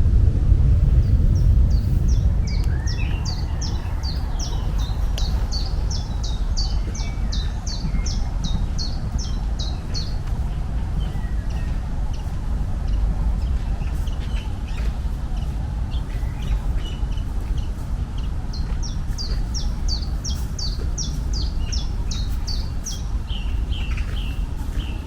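A songbird singing long runs of quick, high, downward-slurred notes, about three a second, in two bouts, over a steady low rumble.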